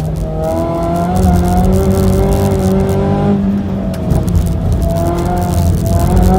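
Mazda 3's four-cylinder engine accelerating hard, its pitch rising, then dropping with a gear change about four seconds in and climbing again.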